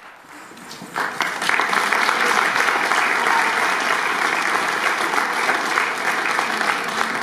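Audience applauding, starting suddenly about a second in, holding steady, and dying away near the end.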